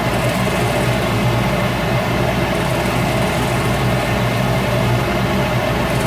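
Shop Fox W1836 midi wood lathe running steadily, its motor giving a low even hum.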